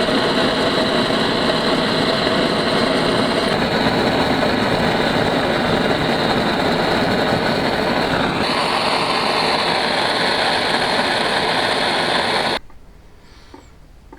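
Gas blowtorch flame burning steadily with a loud hiss while heating pipework for soldering, its tone shifting slightly about eight seconds in; it cuts off suddenly near the end.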